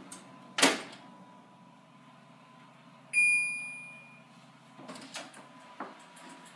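A wall oven's door swung shut with a single bang. About three seconds in, one electronic beep sounds from the oven's control panel and fades over about a second. Near the end come clicks and knocks as the oven door is pulled open again.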